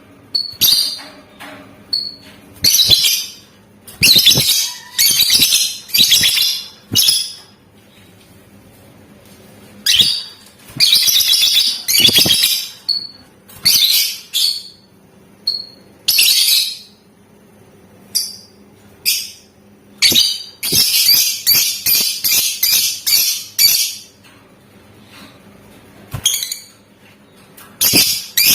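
Lovebird chattering in loud bursts of rapid, shrill, high-pitched trills with short pauses between them. A longer unbroken trill of a few seconds comes a little past two-thirds of the way through.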